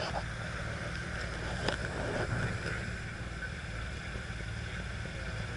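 Alfa Romeo V6 engine idling steadily with the bonnet open, an even low pulsing rumble under a steady higher hum. A short click about a second and a half in.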